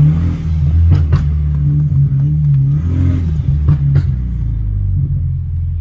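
Performance car engine running loudly through its exhaust with a deep steady drone, broken by a few sharp exhaust pops about a second in and again near four seconds.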